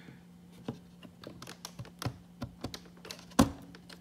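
Flathead screwdriver pressing and levering a plastic retaining clip out of a Corvette front grille: a run of small irregular plastic clicks and taps, with one louder click about three and a half seconds in.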